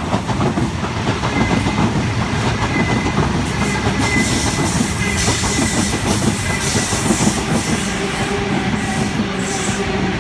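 Sydney Trains M-set (Millennium) electric double-deck train passing through the station at speed without stopping: steady loud rumble of wheels on rail, with a faint high tone in the first half.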